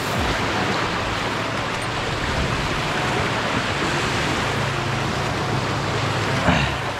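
Steady rushing of saltwater surf and wind on the microphone at the shoreline, with a low hum underneath and a brief sound about six and a half seconds in.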